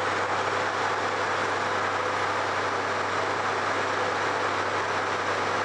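A vehicle engine running steadily close by, a constant even noise that does not rise or fall.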